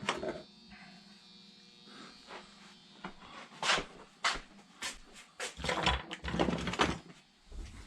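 Irregular clicks, knocks and rattles of hand tools and hardware as a workshop project is taken apart. The knocks start a few seconds in and become a busier clatter near the end.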